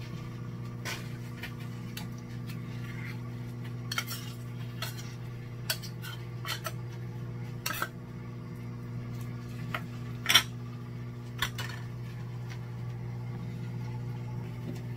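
Metal spoon scraping and clinking against an open tuna can and a ceramic bowl as tuna is scooped out, in scattered sharp clinks, the loudest a little over ten seconds in. A steady low hum of a running microwave oven lies underneath.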